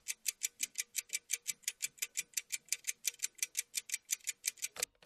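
Stopwatch ticking quickly and evenly, about six sharp ticks a second, cutting off abruptly near the end.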